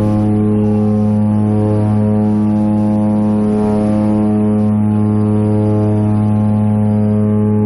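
Steady, even drone of a small turboprop airplane's engines and propellers, heard from inside the cabin during takeoff.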